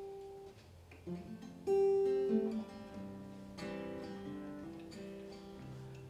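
Acoustic guitar notes ringing out and fading in an instrumental passage of a live folk ensemble, with held notes from other instruments joining about three and a half seconds in.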